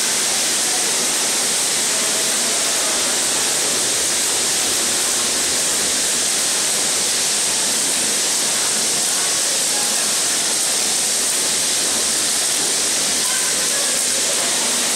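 Metropolis II kinetic sculpture running: a loud, steady rushing whir of hundreds of die-cast toy cars speeding down its plastic tracks, with the conveyor lifts and model trains running.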